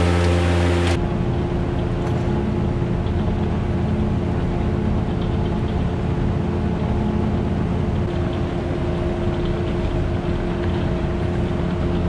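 Electric fan running steadily as it blows air into the silo: a constant motor hum over a rush of air.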